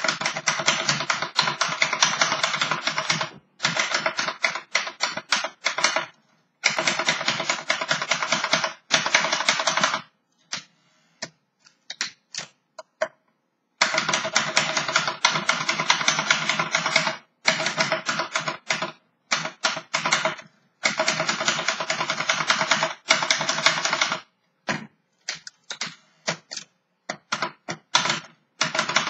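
Restored 1938 Remington Premier manual typewriter being typed on. Fast runs of key strikes come in bursts of a few seconds with short pauses between them, thinning to scattered single strikes around the middle and again near the end.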